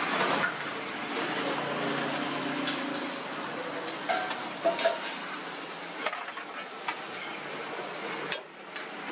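Jalebi batter frying in a large kadhai of hot oil with a steady sizzle. A metal slotted ladle clinks against the pan now and then.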